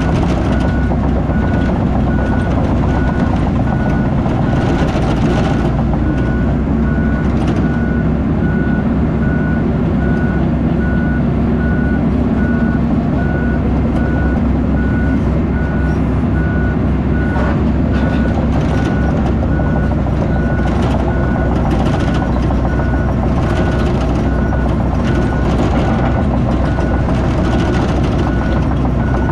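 Heavy recovery excavator's diesel engine running steadily under an evenly repeating backup-alarm beep, with a few brief knocks.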